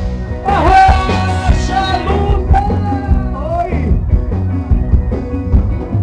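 Live band playing rock-style music: drum kit and electric bass keeping a steady beat, with a melodic lead line over them for most of the first four seconds.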